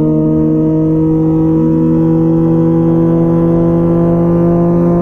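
2004 Honda CBR1000RR Fireblade's inline-four engine through a Jardine titanium exhaust, pulling steadily in one gear at highway speed, its pitch climbing slowly.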